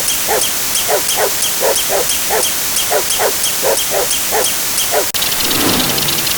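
Repeated short animal calls, about two to three a second, over a steady fast ticking. About five seconds in, a sharp click cuts them off and an engine-like rumble starts.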